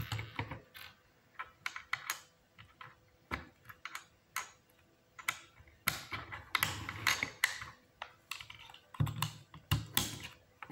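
Lego Technic plastic parts clicking and snapping as they are pressed together and handled: irregular sharp clicks, with a few dull knocks.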